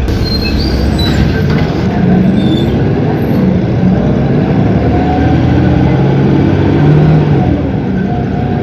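Cummins ISB 6.7 six-cylinder turbodiesel of an Agrale MT17 city bus running loudly and steadily, with the pitch of its engine note shifting up and down over several seconds.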